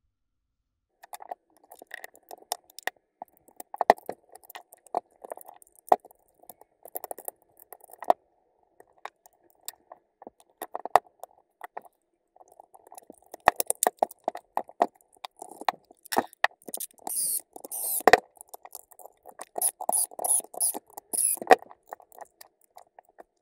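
Clicks, knocks and scraping as the plastic housing halves and metal gearbox parts of a Milwaukee M18 FUEL hammer drill are handled and fitted together. In the second half there are runs of sharp, high-pitched clicking.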